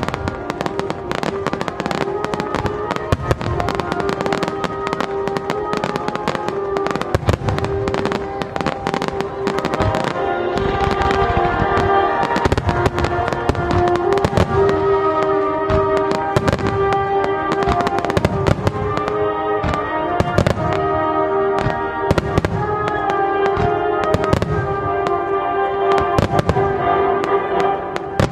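Many aerial firework shells bursting in quick succession, bang after bang overlapping, with music playing under them in sustained chords.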